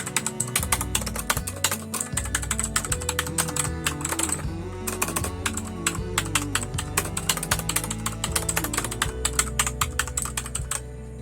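Zebronics Max Pro mechanical keyboard with blue switches being typed on quickly, giving a dense run of clicky keystrokes. There is a brief lull partway through, and the typing stops shortly before the end.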